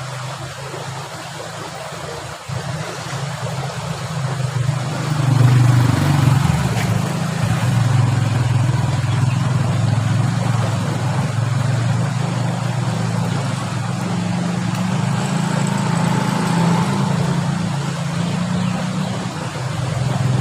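An engine running steadily, getting louder over the first five seconds or so and then holding at a steady level.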